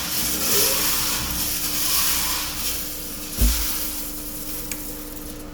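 A machine running with a steady hum and a hiss that swells and fades in slow pulses, with a single dull thump about three and a half seconds in.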